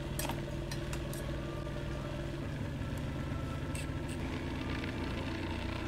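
Small home cotton candy machine running, its spinning motor giving a steady mechanical hum, with a few light clicks.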